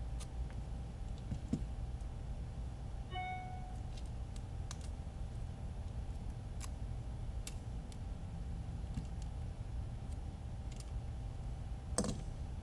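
Small clicks and taps as drone motor and carbon-fibre frame parts are handled, over a steady low hum. A short beep sounds about three seconds in, and a louder knock comes near the end.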